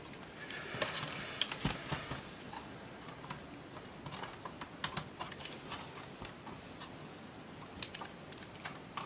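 Light, irregular clicks and taps of an old laptop's plastic and metal parts being handled and worked loose by hand.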